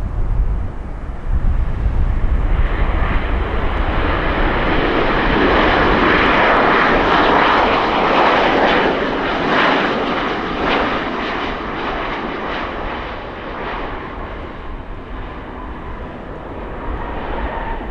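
Jet airliner's engines passing: the noise builds over a few seconds, is loudest in the middle, then slowly fades away.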